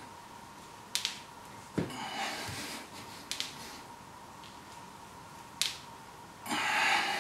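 Sharp metallic clicks from a plate-loaded barbell, four in all, as narrow-grip bench press reps are pressed up and lowered. Two hard breaths out from the lifter under the load, one about two seconds in and a louder one near the end.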